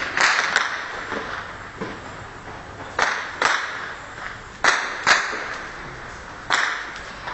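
Gunfire: seven sharp shots, mostly in pairs about half a second apart, each trailing off in an echo.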